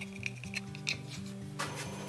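Background music with a bass line stepping from note to note and light ticking. Near the end a scrape of wood on the workbench starts as a board is set down.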